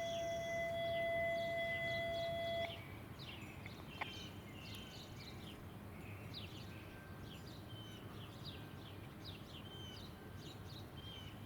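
A steady, buzzy electronic tone, the second of two tones in a row, cuts off about two and a half seconds in. Small birds then chirp over a low steady outdoor hum, with a single click about four seconds in.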